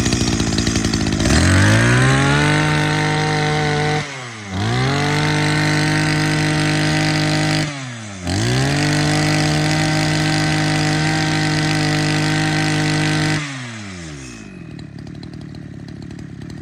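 Small two-stroke brush cutter engine, just started, revved to full throttle three times. It holds the high steady pitch for a few seconds each time, with brief drops between revs, then falls back to a lower idle about three seconds before the end.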